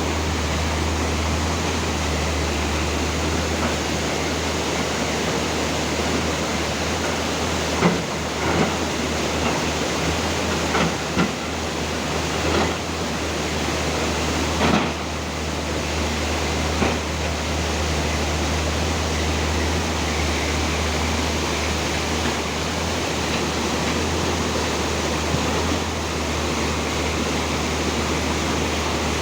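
Steady rushing of a fast river mixed with the low drone of an excavator's engine, with a few short knocks between about 8 and 17 seconds in.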